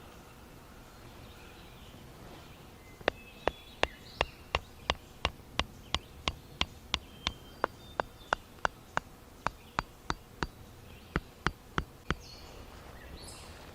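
A steady series of sharp clicks, about three a second, starting about three seconds in and stopping about twelve seconds in with a brief break near the end, over faint bird chirps.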